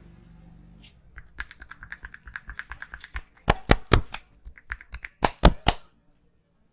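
Rapid series of sharp hand strikes on the head in a percussive Indian head massage, about six a second. The strikes grow louder from about halfway and end with a few hard claps, then stop.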